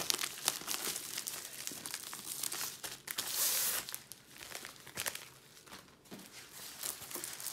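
Packaging crinkling and rustling as a rolled canvas is pulled out of a white mailing pouch, with a louder rustle about three seconds in.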